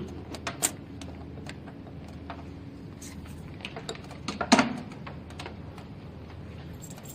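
Light clicks and knocks as a handpiece cable's plug is pushed into a socket on a beauty machine's metal back panel and the cables are handled, with one louder knock about four and a half seconds in, over a faint steady low hum.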